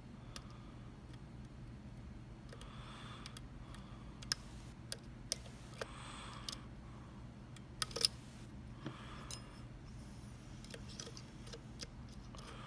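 Light, irregular metal clicks and scrapes of a dimple pick and tension wrench working the pins inside a Mul-T-Lock MT5 dimple lock cylinder, with the sharpest click about eight seconds in.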